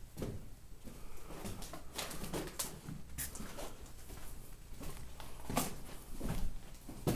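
Irregular footsteps over wet rubble, about one or two steps a second.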